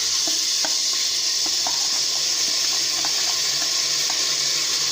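Washed rice sizzling in hot oil in a pressure cooker: a loud, steady hiss that starts suddenly as the rice goes in, with scattered light clicks.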